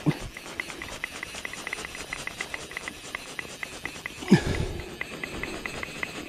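Fly reel's ratchet clicking steadily, about six clicks a second, while a hooked fish is played on a fly rod. A dull thump about four seconds in.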